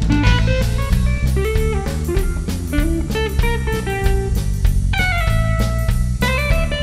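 Rock song, instrumental passage: a guitar plays a moving melodic line over a drum kit.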